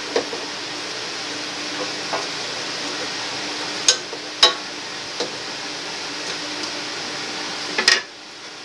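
Wooden spatula stirring vegetables cooking in a stainless steel pot, over a steady sizzle, with a few sharp knocks of the spatula against the pot. Near the end the sound drops away.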